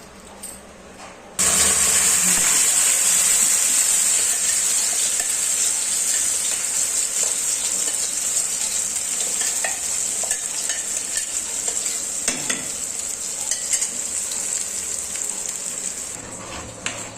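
Ginger and turmeric paste sizzling in hot ghee in a pan. The sizzle starts suddenly about a second and a half in and slowly dies down, with a few clinks of a spoon against the pan.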